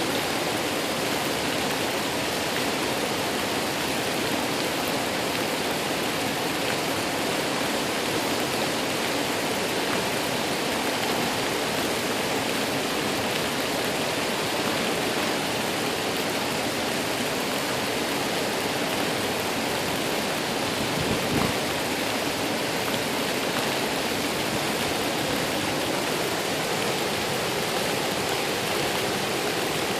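Waterfall, a steady, dense rush of falling water, with one brief low thump about two-thirds of the way through.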